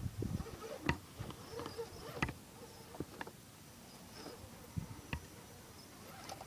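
Axial SCX10 crawler's Castle ROC412 2300kv brushless motor buzzing as the truck crawls slowly over stones, with several sharp knocks of tires and chassis against the rocks.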